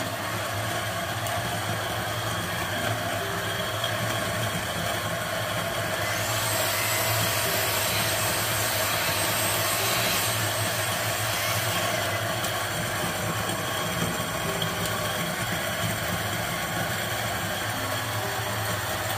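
Niche Zero conical burr coffee grinder running steadily, grinding beans for an espresso shot: a constant motor hum with the rasp of the beans through the burrs.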